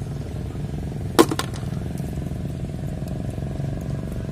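A mangrove clam shell clacks sharply a couple of times, as if dropped into a plastic bucket among other clams, about a second in. Under it, a steady low engine hum runs on.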